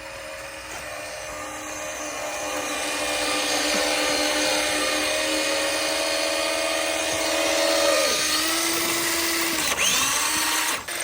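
Electric RC car motor and drivetrain whining under throttle with a new noise in it, which the owners take for a wheel hub spinning loose on its axle. The whine grows louder over the first few seconds, holds steady, drops in pitch about eight seconds in, and cuts out briefly near the end.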